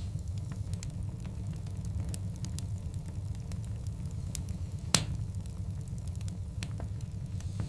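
Wood fire of large burning logs crackling: a steady scatter of small pops over a low rumble, with one louder pop about five seconds in.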